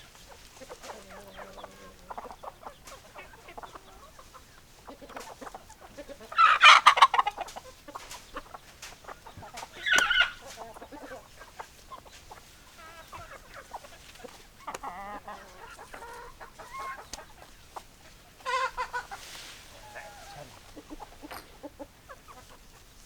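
Chickens clucking, with three louder calls standing out about six, ten and eighteen seconds in.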